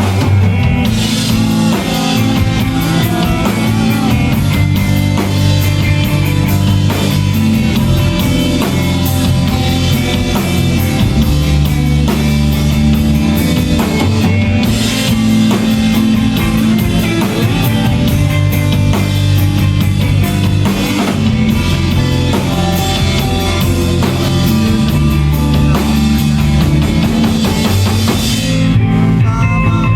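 Emo rock band playing live: drum kit with cymbals, guitars and bass. Near the end the drums and cymbals stop and the guitars carry on.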